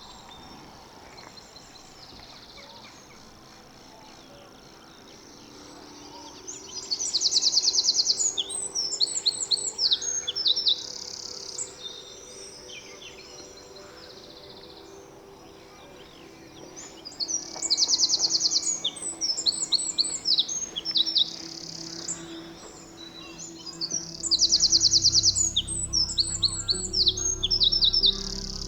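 A songbird singing in three loud bouts of rapid high trills and varied chattering notes, each bout a few seconds long, with quieter stretches between them. Soft music runs underneath, with a low bass coming in near the end.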